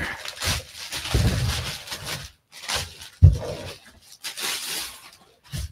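Packaging rustling and crinkling in irregular bursts as a mailed parcel is unwrapped by hand, with a single thump about three seconds in.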